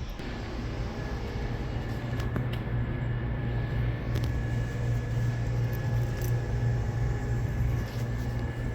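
Steady low mechanical hum with a faint high whine, typical of a refrigerated vending machine running, with a few faint clicks.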